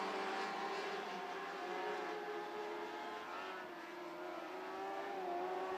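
Several Lightning sprint cars with Suzuki motorcycle engines running at racing speed around the track. The engine note is steady with small rises and falls in pitch, easing a little halfway through and then building again.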